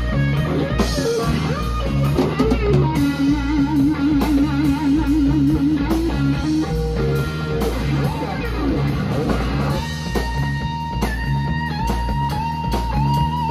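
Live blues-rock trio playing: a Delaney electric guitar through a Fender Super Reverb amp solos over bass and drums. The guitar holds long notes with wide vibrato, a low one about three seconds in and a high one near the end.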